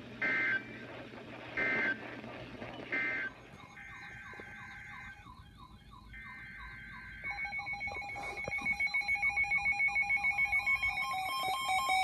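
Emergency Alert System data tones: three short, harsh two-pitch bursts (the end-of-message code that closes the warning), then two longer bursts of the same screech. About seven seconds in, a weather alert radio starts a rapid electronic alarm beeping, about six pulses a second, growing louder.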